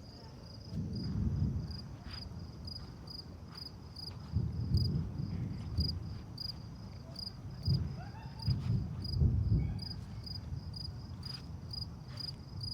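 Distant thunder rumbling low in several rolling waves, the loudest a little past the middle. Underneath, crickets chirp steadily in a fast pulsing rhythm, about three chirps a second.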